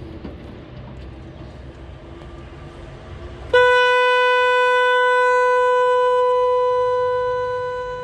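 Newly installed 'magic horn' electric car horn (high-tone unit only) being tested: it sounds one long, loud, steady note that starts suddenly about three and a half seconds in and fades toward the end.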